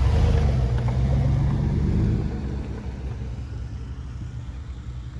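A pickup truck rolling slowly past at close range, its engine loud for about the first two seconds and then fading away.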